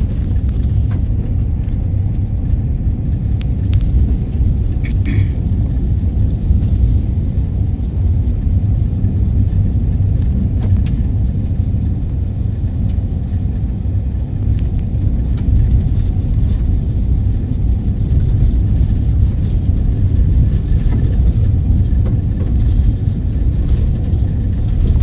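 Steady low rumble of a vehicle driving: engine and road noise, with a few brief clicks or rattles.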